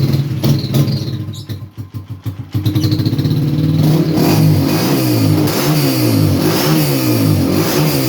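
A 200cc CG-type single-cylinder motorcycle engine breathing through an aftermarket M5 Pro muffler, freshly started and running with an uneven, lumpy idle. About two and a half seconds in, it is blipped up and down again and again.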